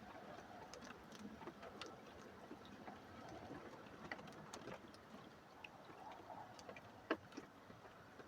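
Faint, irregular patter of raindrops, with scattered small ticks and one sharper click about seven seconds in; no thunder is heard.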